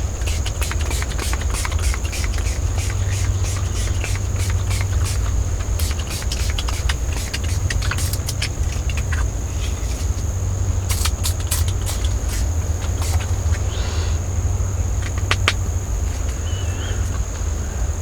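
Steady high insect drone, with a low rumble of wind on the microphone and scattered light clicks throughout.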